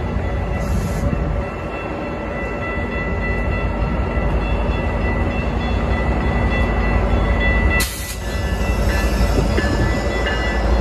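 Metra diesel locomotive and bilevel commuter cars at a station platform: a steady deep engine rumble with a constant high-pitched whine, briefly dipping about eight seconds in and growing louder near the end.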